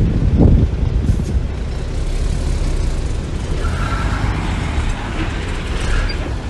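Engine of a small earthmoving machine, a mini bulldozer or mini dump truck, running with a steady low rumble. It swells louder briefly just after the start, and a thin higher-pitched squeal comes and goes in the second half.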